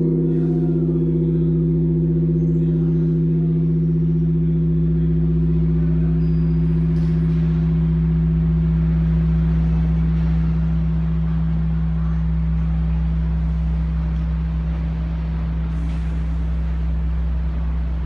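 Large Korean bronze bell ringing on after a single stroke of its hanging wooden log striker: a deep, steady hum made of several tones. The higher tones fade away over about ten seconds while the lowest hum carries on.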